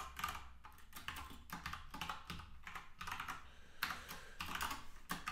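Typing on a computer keyboard: quick runs of keystroke clicks separated by short pauses.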